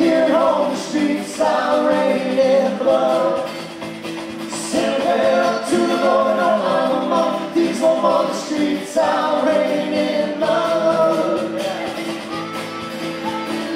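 Live folk-rock band playing a drinking song on accordion, acoustic guitar and electric bass with a cajón, with singing over it.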